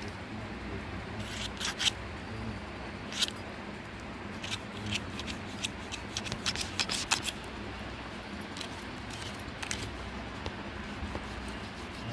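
Knife cutting skin and meat away from a singed goat head on a wooden chopping block: irregular sharp clicks and scrapes of the blade, some in quick clusters.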